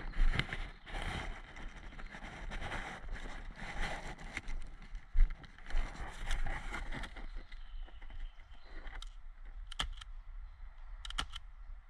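Ghillie suit rustling and footsteps crunching on dry leaf litter as the wearer moves through brush and crouches down. Several sharp cracks follow in the last few seconds.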